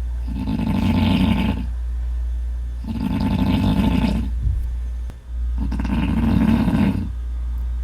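Loud snoring: three long snores, each about a second and a half, coming roughly every three seconds over a steady low hum.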